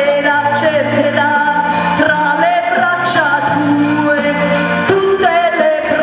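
A woman singing an Italian pop song through a hand-held microphone, holding long, wavering notes over an instrumental accompaniment.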